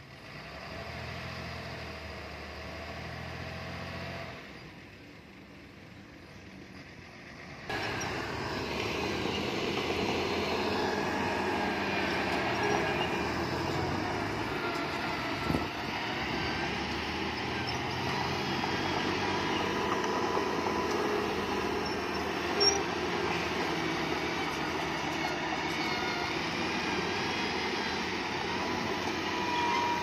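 Heavy diesel machinery working, most likely a bulldozer: a low engine hum, then about eight seconds in the sound jumps suddenly louder into a steady grinding run with a thin metallic squeal, like steel crawler tracks. Two sharp knocks stand out in the second half.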